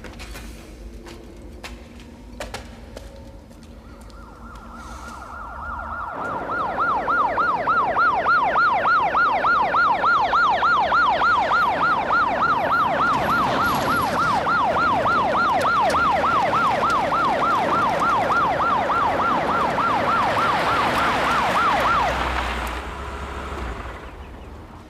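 Emergency vehicle siren coming in on a steady rising tone, then sounding a fast, even up-and-down yelp before cutting off near the end.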